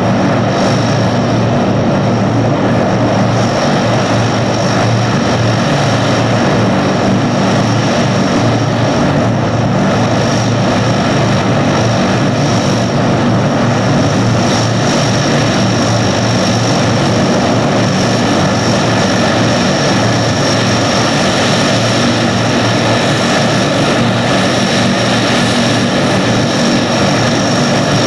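Lockheed C-130 Hercules turboprop engines and propellers running as the aircraft taxis: a loud, steady propeller drone with a thin, high turbine whine over it.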